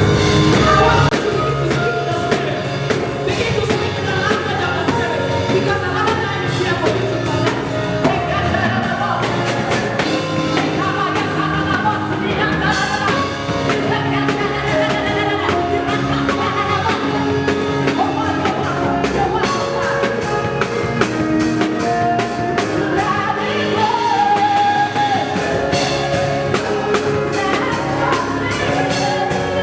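Worship music: singing over a band with drum kit and a steady beat.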